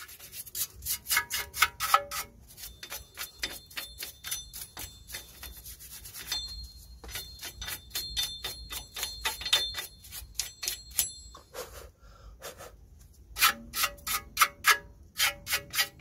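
Hand wire brush scrubbing rust off the bare front wheel hub face of a Mitsubishi Outlander in quick back-and-forth strokes, about five a second, with two short pauses. This is the hub's mounting surface being cleaned before a new brake disc goes on.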